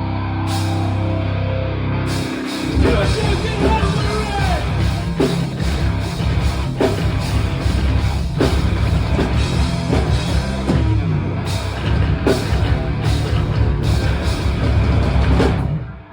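Rock band playing loud, heavy rock with distorted guitars and a drum kit. A held chord rings for the first few seconds, then the drums and full band come in hard, and the song stops abruptly near the end.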